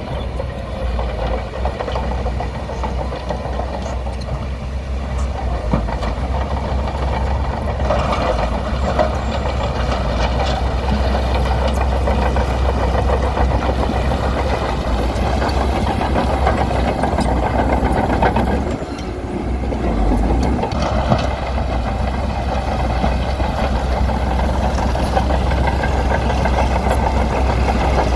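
Bulldozer's diesel engine running steadily under work, a heavy low rumble with a knocking engine note, easing off briefly about two-thirds of the way through before picking up again.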